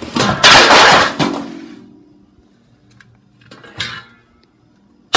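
A metal baking sheet is pulled out of a cabinet of stacked pans: a loud scraping clatter with a brief ring, then a shorter clatter about four seconds in.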